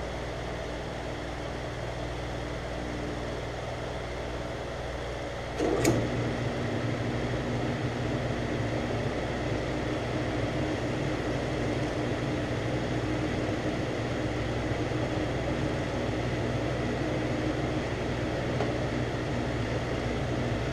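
Metal lathe running steadily while turning a Delrin rod down to bushing size. About six seconds in there is a click, and after it the lathe runs louder.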